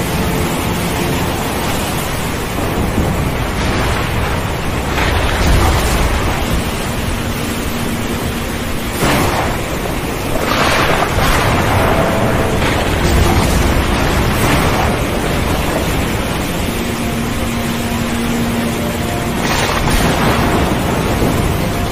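Stormy sea: a steady rush of wind and surf, with waves breaking in louder surges every few seconds. Faint held tones come and go underneath.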